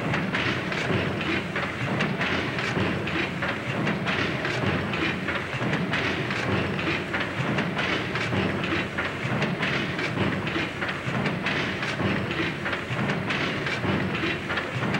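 Horizontal cross-compound steam pumping engine running under steam: a steady, rhythmic mechanical clatter from the moving rods and valve gear.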